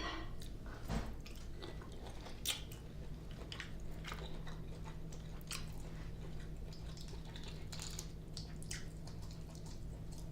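Close-miked chewing of seafood-boil shrimp, with scattered short wet mouth clicks and smacks.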